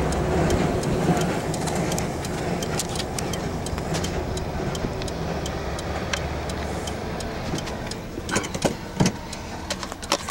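Steady rumble of heavy road traffic, the trucks hauling an oversize mining truck on the highway, slowly fading. A few sharp knocks about eight to nine seconds in.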